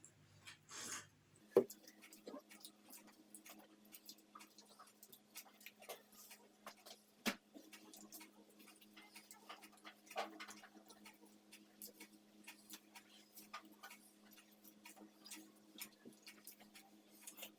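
Faint eating sounds: scattered small clicks and smacks from people chewing burgers fast and handling food. A sharper click comes about a second and a half in and another about seven seconds in. A faint low steady hum runs under them from the first sharp click on.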